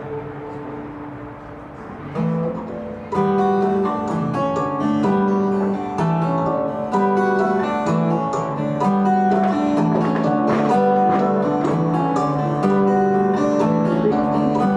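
Acoustic guitar playing an instrumental piece live, with plucked melody notes over repeated low bass notes. It is softer for the first couple of seconds, then comes in fuller about three seconds in.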